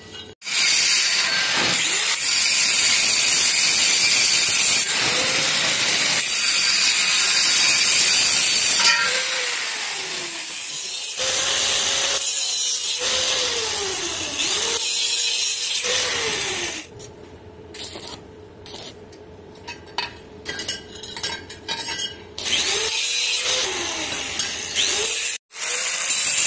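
Angle grinder grinding stainless steel pipe, a loud high-pitched grinding whose pitch dips and recovers again and again as the disc is pressed into the metal. It stops and starts several times, with a quieter stretch of scattered clicks about two-thirds of the way through.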